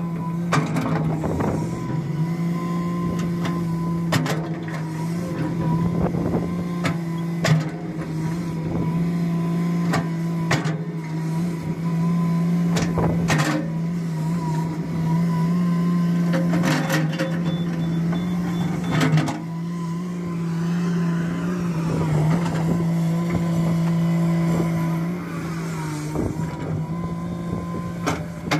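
Komatsu crawler excavator's diesel engine running at a steady working speed while the bucket levels sand, with scattered knocks and clanks every few seconds.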